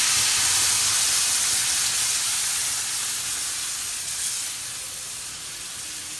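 Wet blended tomato and cashew paste sizzling in hot olive oil with cumin seeds in a frying pan. The loud hiss starts suddenly as the paste hits the oil and slowly fades as it settles.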